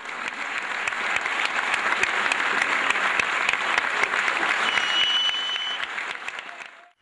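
Concert audience applauding, a dense steady clapping that fades out near the end, with a short high whistle about two-thirds of the way through.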